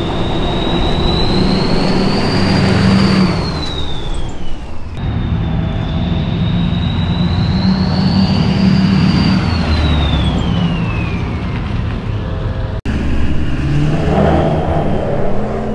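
Straight-piped LLY Duramax 6.6-litre V8 turbodiesel under throttle, its big 64 mm turbo whistling over the low diesel rumble. The whistle climbs as the turbo spools up and then falls away as the throttle lifts, twice.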